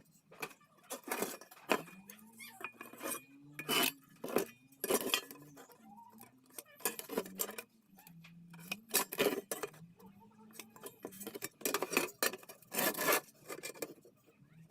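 Pieces of square iron tubing clinking and knocking together as they are handled, in a run of sharp metallic strikes at irregular intervals.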